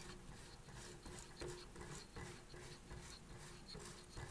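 Flywheel tuning mechanism of a Magnavox receiver being spun, its freshly restrung dial string running over the pulleys. It makes a faint rubbing with light ticks about two or three times a second.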